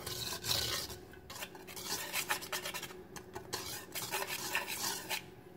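Small wire whisk scraping and swishing through a dry mix of flour and potato starch in a stainless steel bowl, in quick, uneven strokes that work out the clumps of potato starch.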